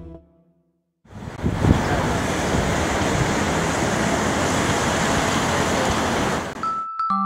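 Steady road noise of a moving car heard from inside the cabin: an even rush of tyres, wind and engine that starts about a second in, after a brief silence, and cuts off near the end.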